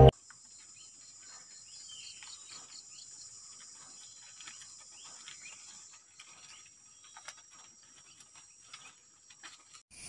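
Forest ambience: a steady high-pitched insect drone with many short bird chirps and calls scattered over it. The drone shifts slightly about six seconds in.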